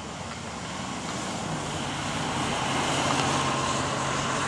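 A motor vehicle going by, a steady engine hum and road noise swelling to a peak about three seconds in.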